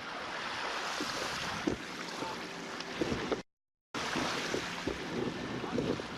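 Wind buffeting the microphone and water rushing and splashing along a boat's hull while under way, with a few short splashes or knocks. The sound cuts out completely for about half a second just past the middle.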